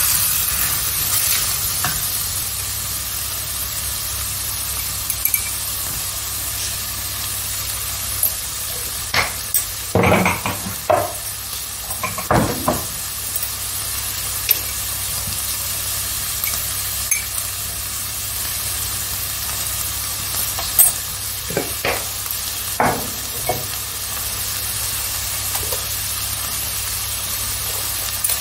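Food sizzling steadily in a hot pan, with a utensil scraping and knocking against the pan in short bursts as it is stirred, a cluster of these about a third of the way in and another about three quarters in.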